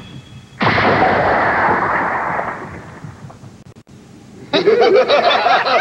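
Animated-show blast sound effect: a sudden explosion-like burst about half a second in that fades away over two seconds. About four and a half seconds in, a crowd of monstrous voices starts shouting at once.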